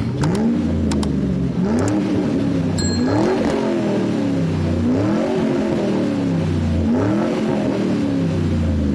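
Car engine revving up and back down over and over, about every two seconds, with a few short clicks in the first three seconds.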